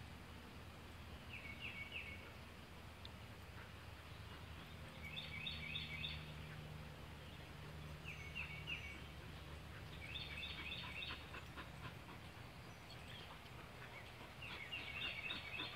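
Outdoor ambience: a high chirping call repeated every two to three seconds, each a quick run of a few notes, over a low steady hum.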